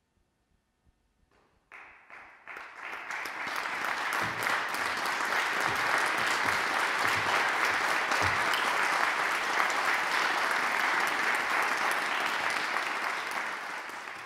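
Audience applauding at the end of a performance. Near silence gives way to clapping about two seconds in, which quickly swells to a steady level and eases slightly near the end.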